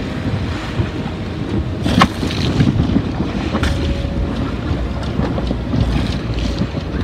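Strong wind buffeting the microphone on a sailing yacht's deck, over the wash of the sea, with a few sharp cracks: one about two seconds in, another in the middle and one near the end.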